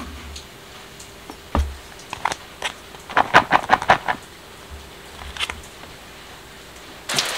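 Clicks and knocks from handling a metal scraper, plastic cutting board and plastic food tub, with a thud about a second and a half in and a quick run of clicks around three to four seconds in. Steady rain comes in suddenly just before the end.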